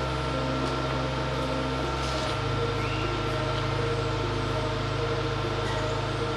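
Background music: a steady, low electronic bass drone with short repeating notes above it, the bass shifting about two seconds in.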